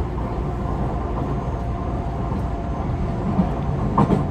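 Running sound inside a Tobu 50090 series electric train car: a steady rumble of wheels on rail with faint steady motor tones. There are two short knocks, about three and a half and four seconds in.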